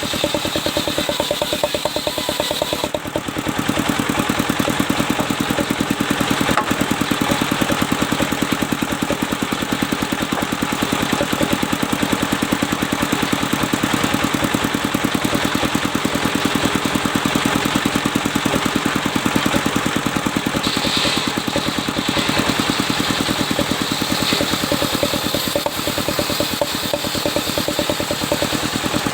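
Sawmill engine running steadily with a rapid, even firing beat. It dips briefly about three seconds in, then carries on a little fuller.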